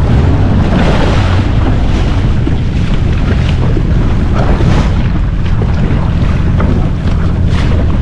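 Wind buffeting the microphone over water rushing and splashing against the hull of a moving jet ski, with a heavy, steady low rumble and repeated short splashes.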